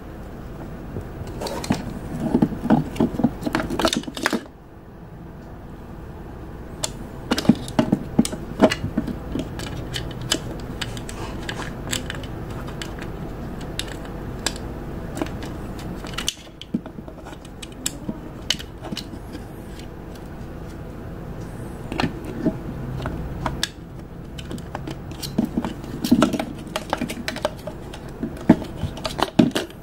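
Hard plastic back cover of a Jumper T18 Pro RC transmitter being handled and fitted back on: irregular clicks, taps and light rattles of plastic parts.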